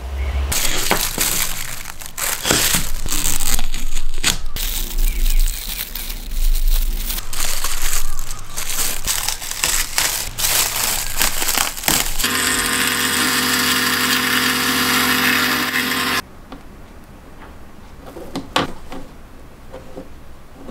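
Plastic wrap crinkling and rustling as it is handled and pulled off a cured blue resin casting. After that comes a steady mechanical whir of about four seconds that cuts off suddenly, then a few light ticks.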